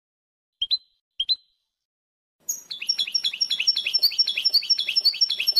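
European goldfinch song in the wdania style: two short chirps about half a second apart, then, about halfway through, a fast run of repeated rising-and-falling notes at about four or five a second.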